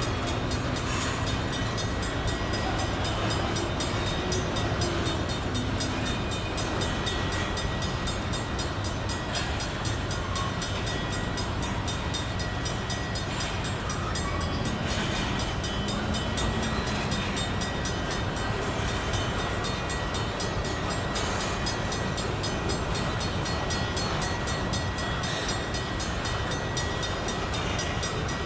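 A freight train of covered hopper grain cars rolling steadily past, making the continuous rolling noise of steel wheels on rail.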